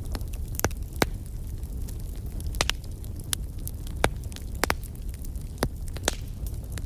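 Wood fire in a fireplace crackling: irregular sharp pops and snaps, about ten in a few seconds, over a steady low rumble of flames.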